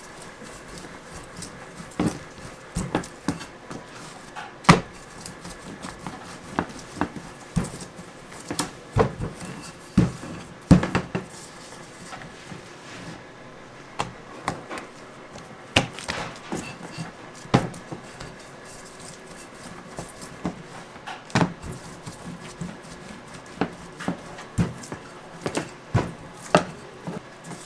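Wooden rolling pin working stiff bagel dough on a stainless steel counter: irregular knocks and thumps of the pin and dough on the steel, some sharper than others. A faint steady tone hums underneath.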